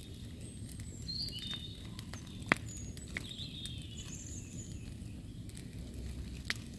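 Woodland camp ambience: faint bird chirps over a low steady background, with scattered sharp clicks and crackles, one louder click about two and a half seconds in.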